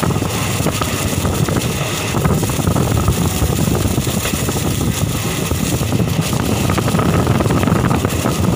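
Passenger train running at speed, heard from an open coach door: a steady rumble and clatter of wheels on the rails, with air rushing past.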